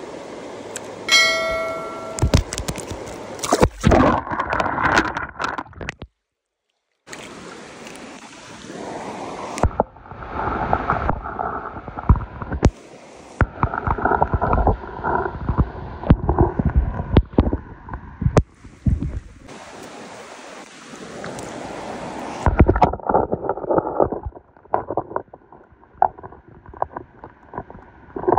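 Rushing stream water and wind on the microphone, with irregular knocks of handling noise, broken by several abrupt cuts; a brief ringing tone sounds about a second in.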